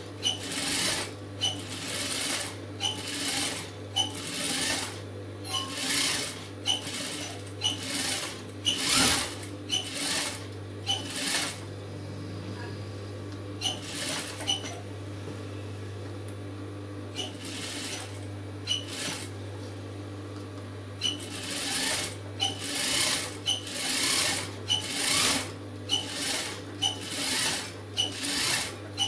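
Industrial lockstitch sewing machine stitching in many short runs, stopping and starting as the fabric is guided, over a steady low hum. In the middle the runs thin out to a few brief ones, then pick up again.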